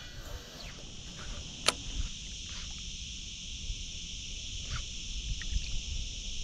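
Steady high chirring of insects, with a single sharp click a little under two seconds in. A low rumble of wind and handling noise runs underneath.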